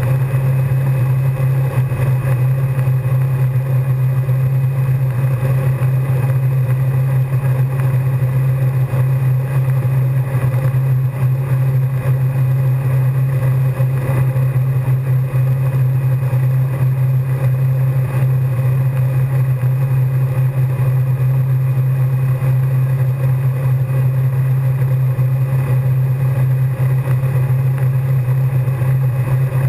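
Wakesurf boat's inboard engine running at a steady speed, a constant low drone, over the wash of the wake.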